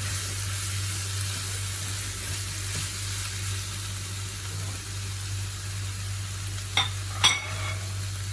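Chicken and vegetables sizzling steadily in oil in a pan on high flame. Near the end there are two sharp clinks of a utensil against the pan.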